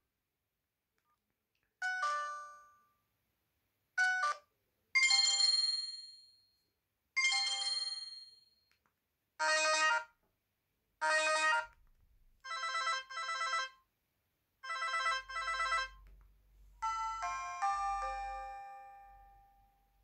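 BenQ-Siemens EF61 mobile phone playing its preset alert tones one after another: a series of short electronic chimes and double beeps, each a second or two long and fading out, separated by brief pauses.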